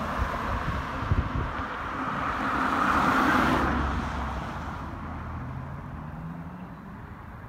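A car driving past on the road: tyre and engine noise swelling to a peak about three seconds in, then fading away.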